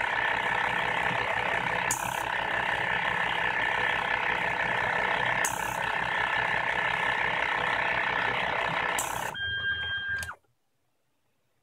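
DIY needle seeder running: its small vacuum pumps, vibrating seed-tray motor and stepper motors make a steady mechanical noise, broken by a short hiss of air about every three and a half seconds as the three-way valves switch to blow the seeds off the needles. The noise changes briefly and cuts off about ten seconds in as the machine stops.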